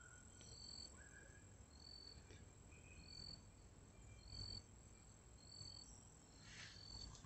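Near silence: a faint, short high chirp repeats about once a second, with a couple of lower whistled notes near the start.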